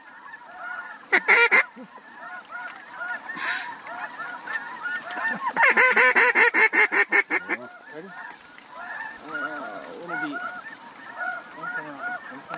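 Many geese honking together throughout, overlapping short calls. Over them, a hunter's hand-blown waterfowl call sounds in fast, loud runs of rapid notes: a brief burst about a second in, and a longer run of about two seconds near the middle, calling to a circling flock.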